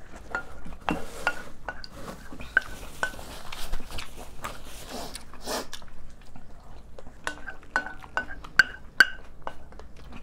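A spoon and chopsticks clinking and scraping against ceramic bowls during eating: many short, lightly ringing clinks, coming thickest near the end.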